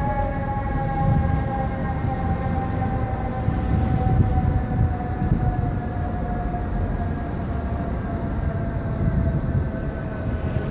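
Fire truck's mechanical siren winding down: one steady tone, falling slowly in pitch, fading as the truck pulls away. Low traffic rumble underneath.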